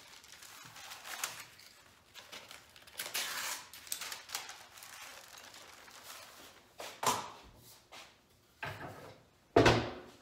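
Brown kraft paper rustling and crinkling as a sheet is unrolled and handled on a wooden workbench, in scattered bursts, followed by a sharp thump near the end.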